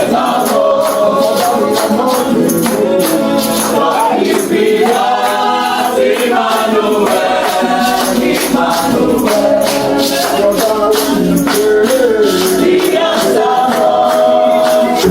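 Gospel worship song: a choir singing a slow melody over high, steady-beat percussion.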